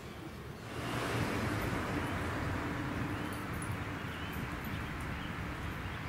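Steady outdoor background hiss that comes up about a second in and holds, with a few faint high chirps.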